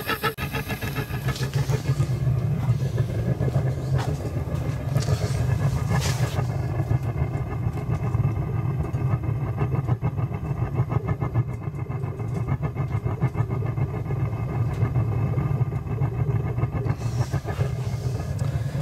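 Amal gas burner firing a gas forge, a steady low rumble with a rapid flutter. The burner is turned down, fed just enough gas to keep it going and hold the forge near 940 °C.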